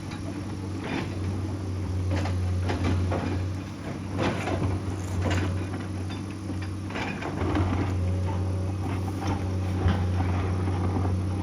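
Excavator's diesel engine running steadily under load, with irregular clanks and scrapes of rock and metal as the machine digs.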